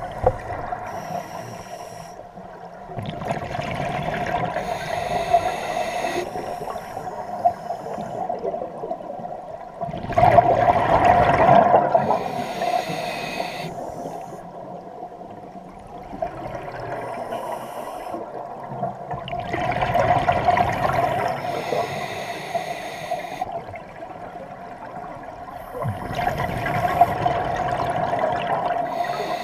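Scuba diver's regulator breathing heard underwater: four long swells of exhaled bubbles, about every seven to eight seconds, with quieter stretches between.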